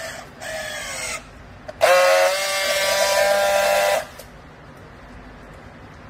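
Battery-powered handheld strapping tool running its motor on a plastic strap around a bale: a short whir that drops in pitch, then after a pause a louder steady whir for about two seconds that stops abruptly, the tool tensioning and then friction-welding the strap.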